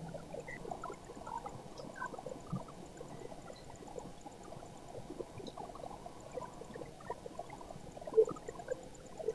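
Paper being handled: soft, crackly rustling of a typed letter and a translucent journal page as they are moved about, with a sharper tap about eight seconds in as the page goes down on the desk.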